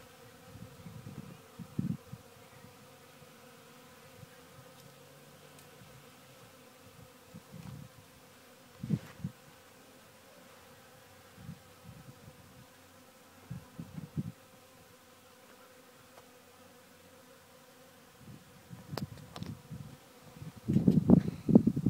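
Honey bees buzzing as they fly close past the microphone, in short passes every few seconds, with a louder, longer burst of buzzing near the end.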